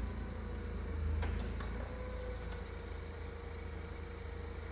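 Forklift engine idling with a steady low hum, with a couple of light clicks about a second in.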